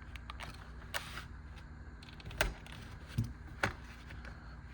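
Three sharp clicks, about a second apart, with fainter ticks and one soft knock, from handling a small folding utility knife, a Gerber EAB Lite, over a steady low hum.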